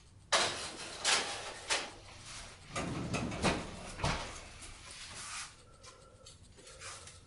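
Metal baking tray and pans clattering on a stovetop as they are handled: a sudden loud knock just after the start, then a run of knocks and scrapes that dies down after about five seconds.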